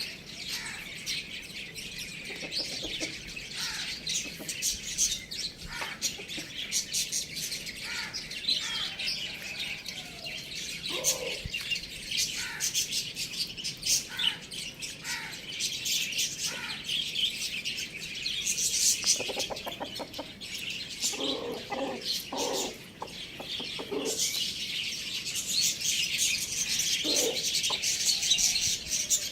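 Many small birds chirping continuously in a dense, high-pitched chatter, with a few short, lower calls about 11 seconds in, around 19 to 22 seconds and near the end.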